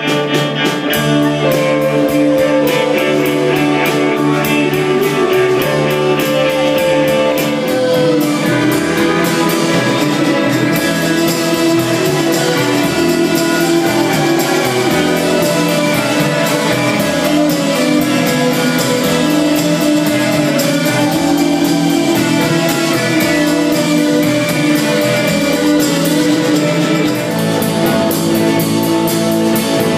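Rock music with guitar, drums and singing.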